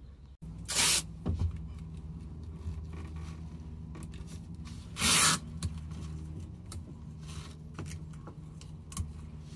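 Masking tape pulled off the roll in two short ripping pulls about four seconds apart, with fainter handling and rubbing noise between, over a steady low hum.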